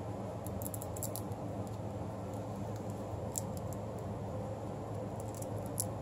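Light scattered clicks and ticks from hands handling a velcro strap, in small clusters, over a steady low hum in the room.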